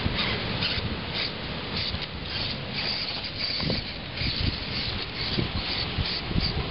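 Losi Micro Rock Crawler's small electric motor and gears whirring in short bursts as it is driven over rock, under wind buffeting the microphone.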